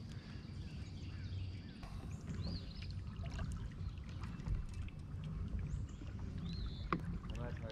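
Water washing along the hull of a moving kayak over a low steady rumble, with a few short bird chirps.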